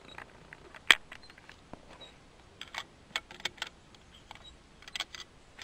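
A sharp metallic click about a second in, then a few clusters of lighter clicks and rattles: a bolt-action rifle being worked and handled between shots.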